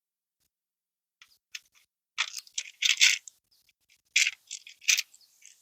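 Clinks, clatter and short scrapes of small hard objects being handled, in two main clusters.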